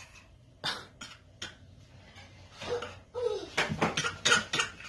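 Clattering and clicking of small hard objects: a few separate clicks, then a busier run of clatter in the second half.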